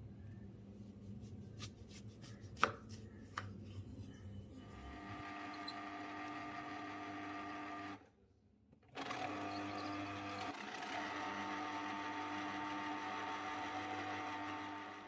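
A kitchen knife cuts through oranges on a wooden chopping board, with a few sharp knocks. Then an Ikon electric citrus juicer's motor hums steadily as orange halves are pressed onto its spinning reamer. The motor stops for about a second, eight seconds in, and then starts again.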